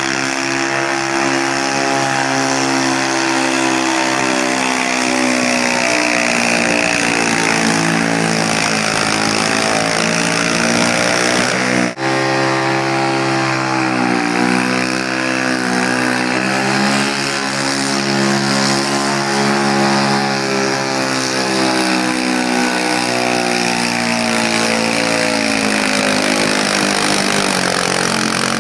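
Super stock garden pulling tractors' engines running at high revs under load while pulling the sled, the pitch sagging and climbing again several times. A sudden break about twelve seconds in cuts from one tractor's pull to the next.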